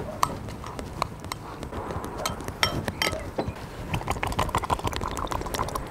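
Metal spoon stirring a chunky sauce in a ceramic bowl, scraping and clinking against the bowl's sides in quick irregular clicks that come thickest about four seconds in.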